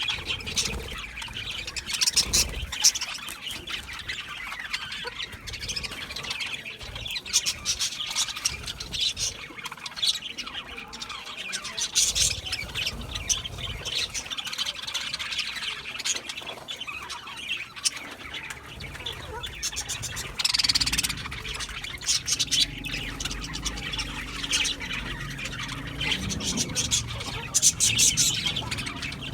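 Budgerigars chirping and chattering steadily, with louder squawky calls every few seconds.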